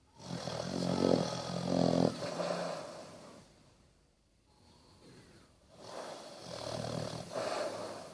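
Basset hound snoring in deep sleep: two long, rattling snores on the in-breath about five seconds apart, with a quiet breath between them.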